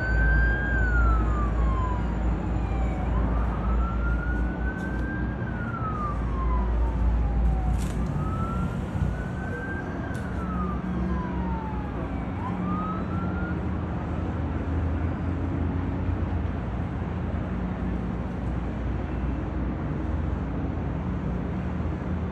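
A siren wailing slowly up and down, about three full rises and falls, each cycle about four to five seconds long, dying away a little over halfway through. A steady low rumble runs underneath.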